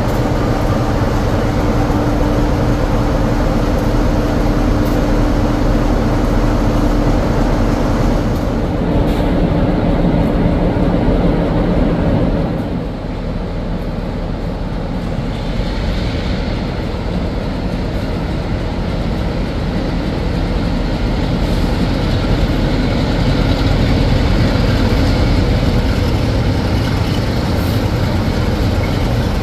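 Train running through the station: a loud, steady rumble with a held tone for the first twelve seconds, after which the sound dips and changes.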